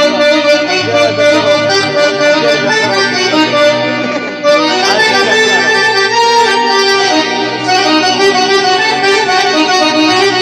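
Live Arabic party music led by an oriental electronic keyboard (org) playing with an accordion-like tone. It gets louder about four and a half seconds in.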